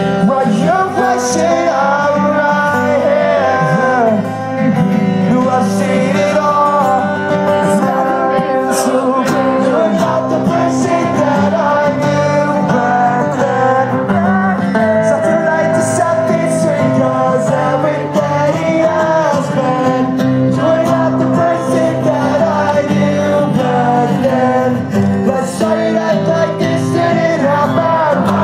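Live acoustic band song: strummed guitars under a male lead vocal, played through the venue's PA.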